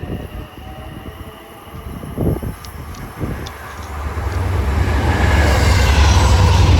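Long Island Rail Road train approaching and passing, its low rumble and rushing wheel noise building from about four seconds in and loudest near the end.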